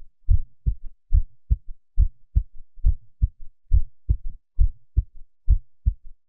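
Heartbeat sound effect: low thumps in a steady lub-dub rhythm, a little under one beat a second.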